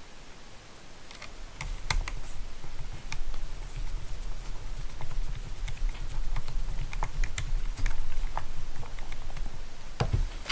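Small parts of a GMADE BOM RC crawler's rear cantilever suspension being fitted together by hand: irregular light clicks and taps, with a low handling rumble from about a second and a half in.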